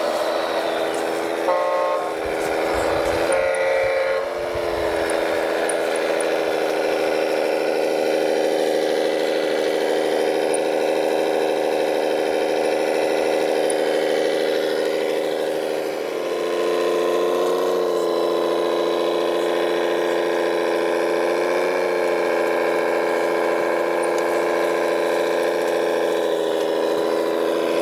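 Radio-controlled MAZ-537 scale truck running with a steady, multi-toned engine drone that steps up in pitch about two-thirds of the way through. Two brief higher tones sound near the start.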